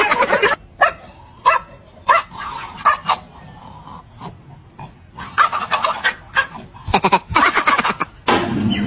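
A German Shepherd-type dog growling and barking in short bursts while biting at its own hind leg.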